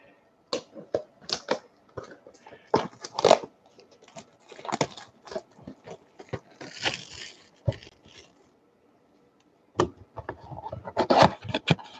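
Wrapped baseball card packs and their cardboard boxes being handled and lined up: irregular crinkles and taps, with a longer rustle about seven seconds in and a short pause just before ten seconds.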